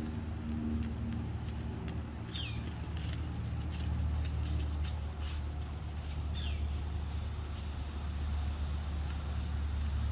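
Wind buffeting the microphone as a steady low rumble, with a cluster of sharp clicks and a couple of short falling chirps over it.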